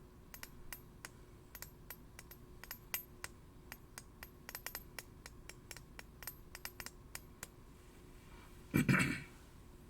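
Steel blades tapping and clicking against each other in quick, irregular light strikes, some with a thin high metallic ring, followed about nine seconds in by a single louder, short scrape.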